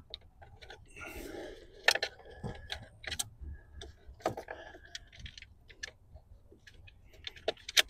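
Wiring harness and plastic electrical connectors being handled and fed through behind a dashboard panel: scattered light clicks and taps with short bursts of rustling.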